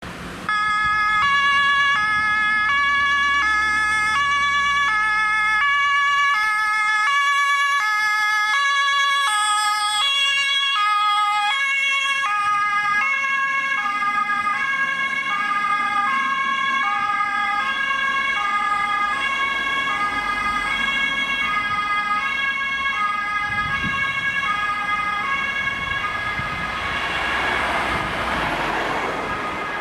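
German ambulance two-tone siren (Martinshorn) alternating quickly between a high and a low tone as the ambulance drives past. The pitch of both tones drops slightly as it passes. Road and engine noise swells near the end.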